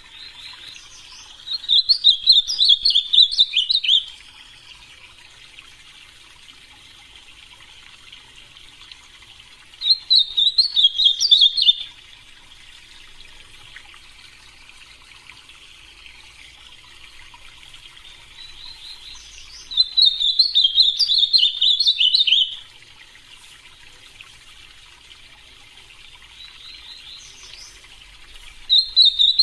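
Ultramarine grosbeak (azulão) singing: loud warbled song phrases of two to three seconds, repeated about every nine seconds, three full phrases and the start of a fourth near the end, with softer continuous twittering in the gaps.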